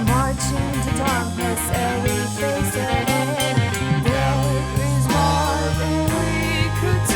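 A band's rock song playing: drums keeping a steady beat under sustained bass and guitar chords, with a wavering lead melody line above.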